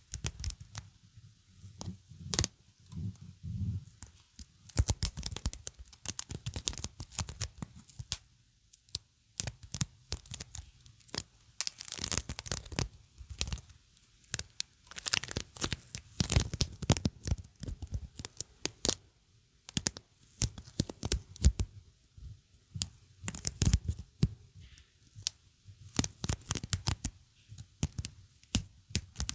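Sticky material being pulled and peeled apart by hand, in irregular bursts of crackling, tearing peels.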